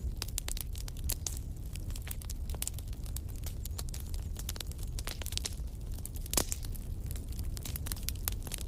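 Wood campfire crackling with a steady run of irregular snaps and pops, one louder pop about six seconds in, over a low steady rumble.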